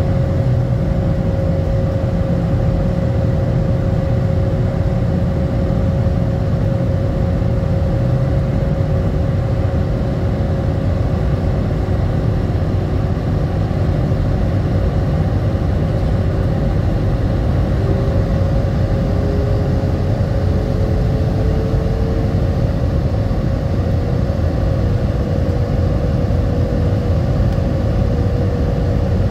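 Jet airliner's engines and airflow heard inside the passenger cabin: a loud, steady roar with a constant hum running through it, and a second hum that rises slightly in pitch a little past halfway.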